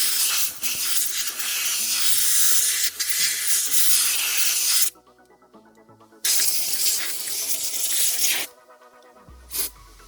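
Loud hissing spray in two long blasts, about five seconds and then about two seconds, with a short third blast near the end, over background music.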